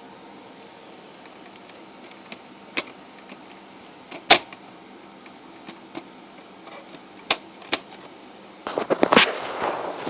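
Sharp plastic clicks and knocks from PS3 console parts being handled, a few scattered ones with the loudest about four seconds in, then a busy run of clattering and rustling near the end.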